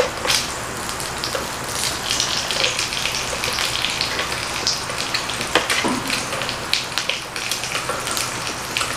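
Beef slices sizzling on the frying plate of an electric steamboat grill: a steady hiss dotted with many small crackling pops, with a few sharper pops around the middle.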